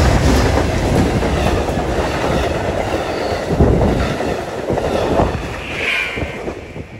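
Amtrak P42DC diesel locomotive rumbling past close by, followed by its passenger cars rolling past with wheels clacking over the rail joints. The sound fades near the end as the train goes by.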